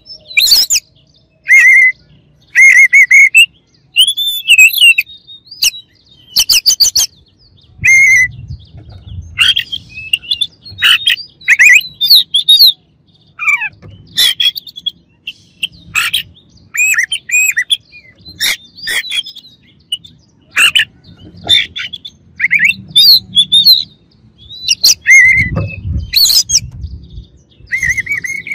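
Oriental magpie-robin (kacer) singing loudly: a long run of short, varied phrases of whistles, slurred notes and buzzy chirps, separated by brief pauses.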